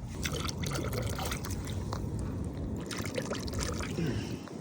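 Water lapping and trickling, with irregular small clicks and taps.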